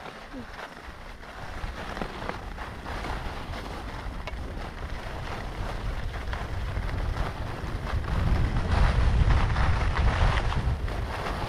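Wind buffeting a GoPro's microphone during a downhill ski run, with skis hissing and scraping over packed groomed snow. The wind rumble grows louder about two-thirds of the way through.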